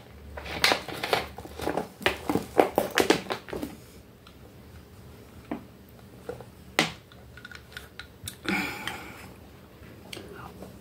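A plastic bottle of orange soda is handled and poured into a glass: a dense run of crackles and clicks for the first three seconds or so. After that come a few isolated clicks and knocks.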